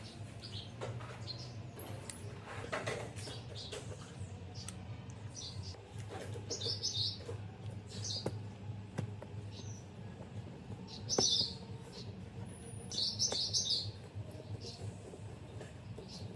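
Small birds chirping in short bursts several times, over a steady low hum and a few light taps and clicks of handling.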